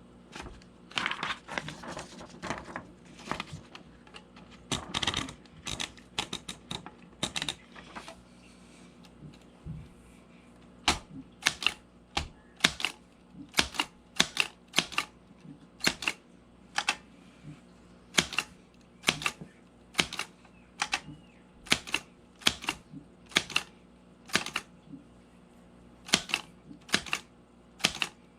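Brother typewriter being test-typed with a freshly fitted ribbon. A few seconds of mechanical clatter near the start give way to single sharp key strikes, roughly one every half second to a second.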